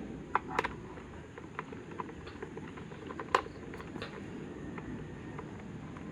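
Scattered light clicks and taps from handling tools and electric fan motor parts during a repair, with one sharper click a little past three seconds, over a steady low background hum.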